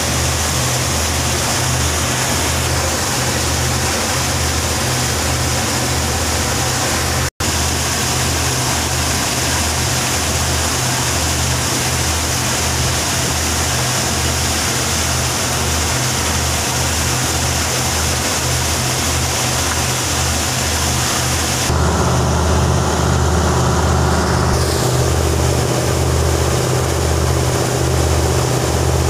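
Engine of a wooden river taxi boat under way, running with a steady low pulsing beat over a constant hiss of water and wind. The sound drops out for an instant about seven seconds in, and a little past twenty seconds it turns louder, with more of the engine's tones and water rushing along the hull.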